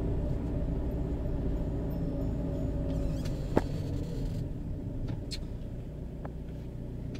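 Steady low rumble of road traffic heard from inside a van's cab, with a sharp click about three and a half seconds in as the phone is handled.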